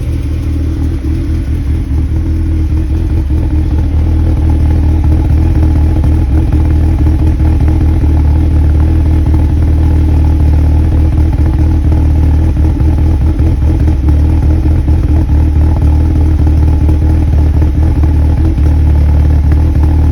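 2001 Mazda MX-5 (NB) four-cylinder engine idling roughly after a cold start, a steady low running note with an uneven flutter. It gets a little louder over the first few seconds, then holds steady.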